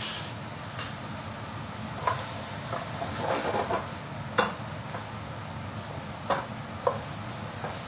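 Chickpeas frying in oil in a stainless steel skillet, sizzling steadily as they are stirred with a wooden spoon. The spoon knocks sharply against the pan a few times, about two seconds in, near the middle and twice toward the end.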